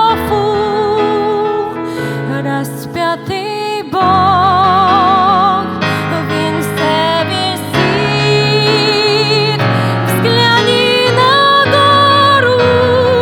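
Christian hymn music: a held vocal melody with wide vibrato, sung over steady low accompaniment, changing note every second or two.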